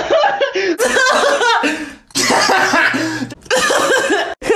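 A young man's laughter in rapid repeated bursts, breathy and coughing-like, breaking off abruptly a few times as one laughing clip cuts to the next.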